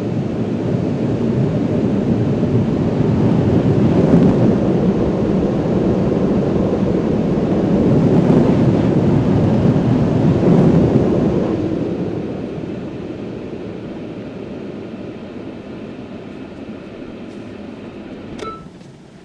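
Automatic car wash running, heard from inside the car's cabin as a loud, steady rumbling roar. It fades after about twelve seconds as the car leaves the wash bay, and a short click comes near the end.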